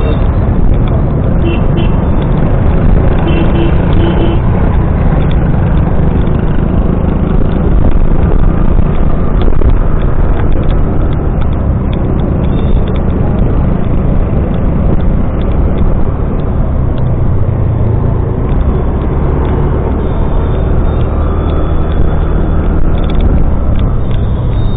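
Steady, loud noise from a moving vehicle on the road: engine running and wind rumble, heaviest in the low end. A few short steady tones sound briefly near the start and again near the end.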